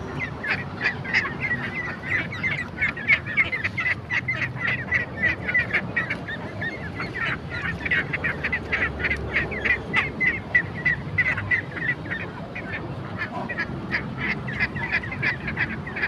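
A flock of ducks quacking: many short calls overlapping, several a second, without a break.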